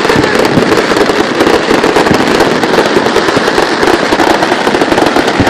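Aerial fireworks display going off in a dense, continuous barrage of bangs and crackling, with no pause between bursts.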